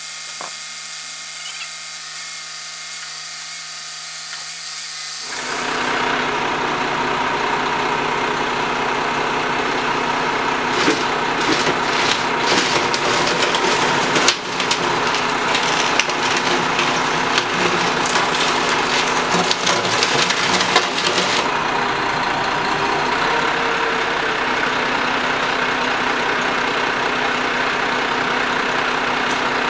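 Boom truck's engine running steadily to drive its hydraulic knuckle-boom crane, getting louder about five seconds in. Clicks and rattles come over the middle stretch as the boom takes up the strap.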